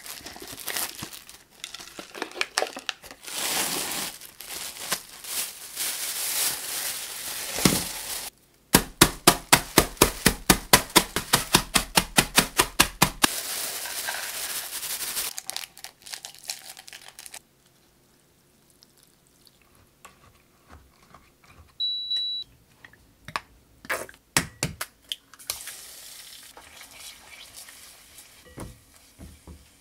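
Plastic film wrapper of a Shin Ramyun cup crinkling as it is peeled off. Then a quick run of sharp knocks, about four a second for several seconds, as the dry noodles are crushed in a plastic bag, followed by rustling as they pour into the cup. Later a short electronic beep from an induction cooktop, a few knocks, and eggs starting to sizzle in oil, stirred with a silicone spatula.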